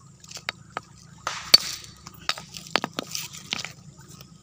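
Steel claw hammer striking a stone, about eight sharp clinks of metal on rock at an uneven pace, the loudest about one and a half seconds in with a brief crumbling crack. The stone is a chunk of fossil palm-wood agate being chipped open to expose its inside.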